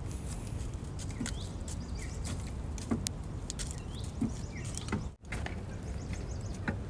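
Outdoor ambience in a backyard chicken run: a steady low rumble of wind on the microphone, with a few short bird chirps and small clicks. The sound cuts out briefly about five seconds in.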